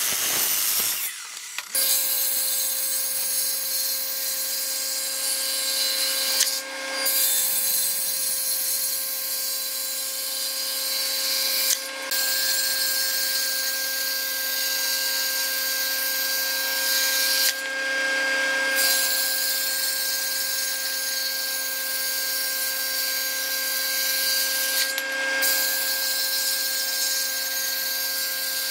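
A sliding miter saw finishes a cut through a thick wood block in the first second or so. Then a table saw runs steadily with a constant hum and whine and a strong hiss as a block is fed through it, broken by a few brief jumps in the sound.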